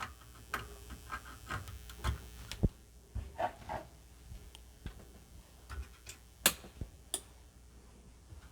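Scattered light clicks and taps of small parts being handled on a workbench, as a replacement PLA chip is fitted into a Commodore 64 board. The clicks come thickly at first, thin out, and the sharpest one lands about six and a half seconds in.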